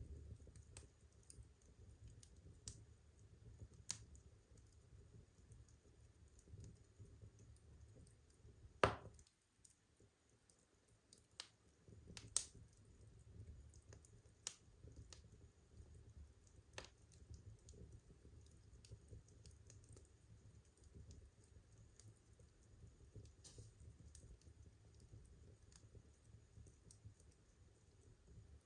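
Burning firewood crackling softly, with scattered irregular pops and snaps over a faint low flame rumble. The loudest snaps come about nine seconds in and again about twelve seconds in.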